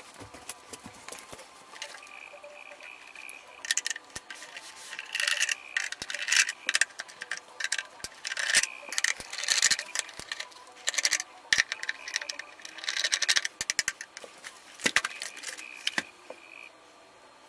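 A screwdriver backing small metal screws out of the plastic underside of an NEC VT45K projector: irregular clicks and short scraping bursts as the screws turn, with light metallic rattles as they are handled.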